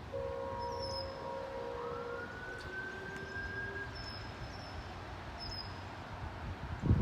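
GO Transit cab car train horn sounding one blast of about four seconds, heard from a distance: a chord of several steady notes, with one note gliding upward partway through. Faint bird chirps are heard in the background.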